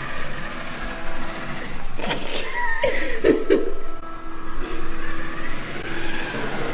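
Remote-control car's small electric motor whirring as it drives a mannequin along, its pitch sliding up and down briefly around the middle.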